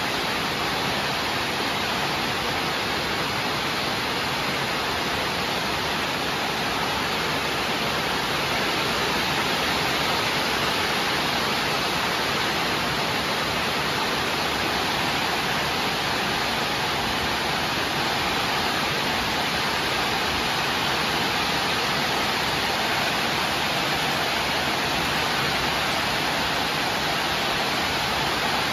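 Steady, even hiss of noise that does not change.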